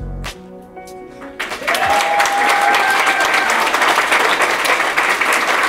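A music track with a low beat plays briefly and stops, and about a second and a half in an audience breaks into loud, sustained applause.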